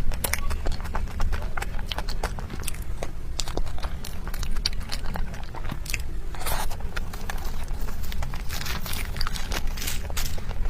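Close-miked biting and chewing of food, with many quick sharp clicky mouth sounds and a few longer wet smacks.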